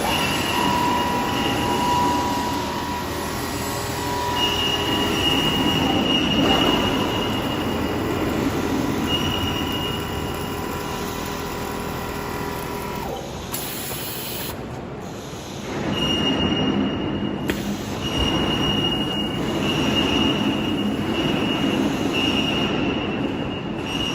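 Computerized single-needle quilting machine running and stitching, a steady mechanical clatter with a high-pitched whine that comes and goes. It drops quieter for a couple of seconds past the middle, then picks up again.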